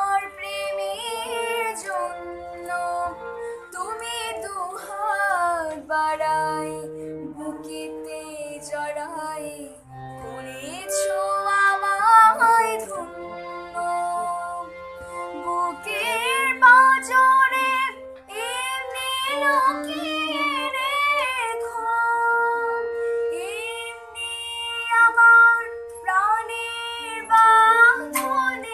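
A young girl singing a song to her own harmonium accompaniment, her voice gliding and wavering in pitch over the harmonium's steady, long-held reed notes.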